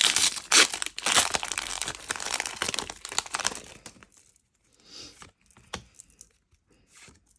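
Foil Pokémon booster pack wrapper being torn open and crinkled: dense crackling for about three and a half seconds, then only a few faint clicks and rustles.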